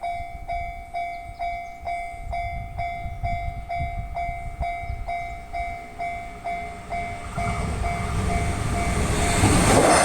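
Japanese level-crossing alarm bell ringing in a steady ding-ding at about three strikes a second. Near the end the rising noise of an approaching train covers it and grows loud as the train reaches the crossing.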